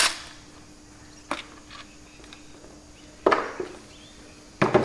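A cordless power driver cuts off at the very start. Then come three separate sharp metal knocks and clinks, the loudest about three seconds in, as tools and parts are handled on a cast-iron tractor gearbox housing.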